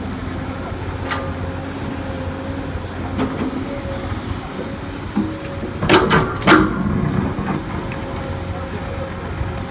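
Komatsu PC200 hydraulic excavator's diesel engine running steadily under work, with a few sharp knocks bunched together about six seconds in.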